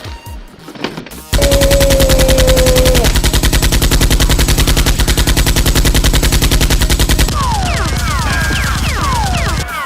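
Rapid automatic machine-gun fire from a sound effect, starting about a second in and running as one long, loud burst. Falling metallic pings join the shots over the last couple of seconds.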